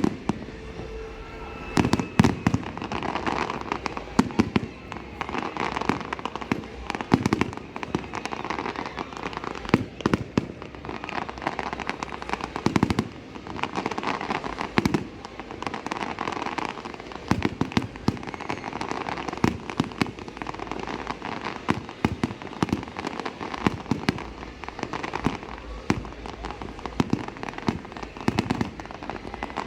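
Fireworks display: a steady barrage of bangs, roughly one to several a second, with crackling between them.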